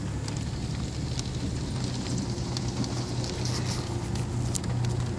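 A car running at low speed, heard from inside the cabin with the window down: a steady low engine and road hum, with scattered light crackling ticks over it.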